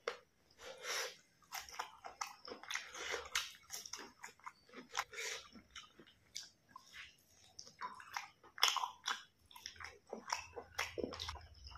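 A person chewing mouthfuls of rice and pork with open-mouthed smacks, heard as a steady run of short, irregular smacks and clicks.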